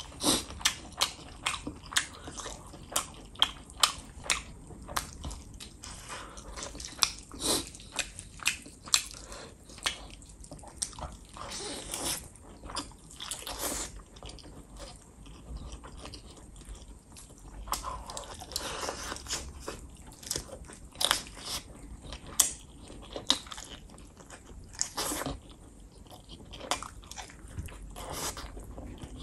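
A person biting and chewing chicken and rice eaten by hand, with many sharp mouth clicks. A few longer hissing sounds come in the middle and again near the end.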